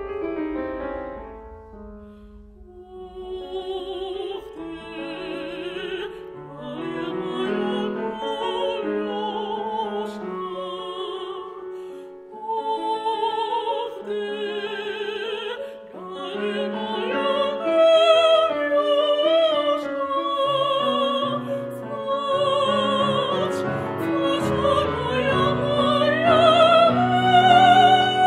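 Classical singing with piano accompaniment: a trained voice with wide vibrato sings long phrases over piano chords, climbing to a loud, held high note near the end.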